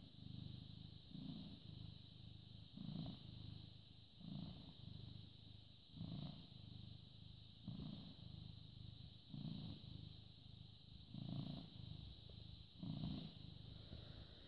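A British Shorthair cat purring faintly, the low purr swelling with each breath about every second and a half.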